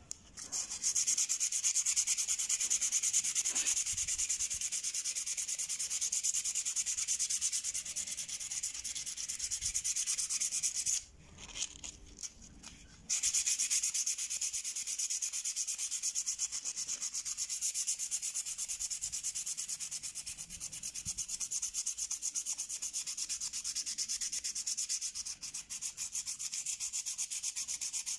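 Hand-sanding a steel knife blade with a folded sheet of dark sandpaper: a steady, hissing scrape of quick back-and-forth strokes, which pauses for about two seconds around the middle.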